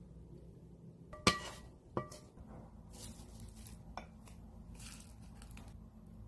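Kitchen dishes clinking: a sharp ringing clink about a second in, a second clink just after, and a lighter tap later, with soft handling noise between.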